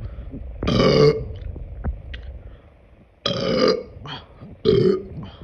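A young woman burping three times: one burp about a second in, then two more close together in the second half.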